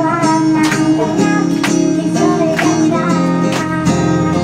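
A woman singing into a microphone to her own strummed acoustic guitar, with handclaps marking a steady beat about twice a second.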